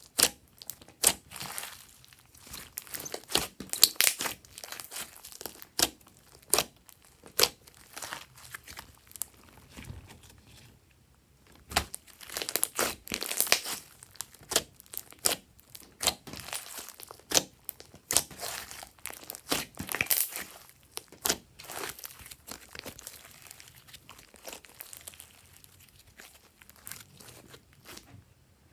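Glossy slime being squished and stretched by hand, making irregular sticky clicks and pops, with a short lull about ten seconds in.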